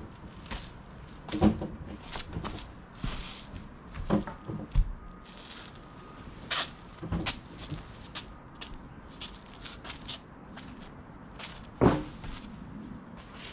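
Footsteps and irregular knocks and thuds on a roof covered in roofing felt as a person walks across it, with the loudest knocks about a second and a half, four, seven and twelve seconds in.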